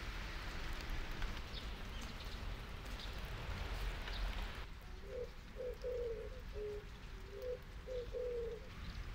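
Steady rain falling. From about halfway in, a dove coos a phrase of about six low notes over the rain.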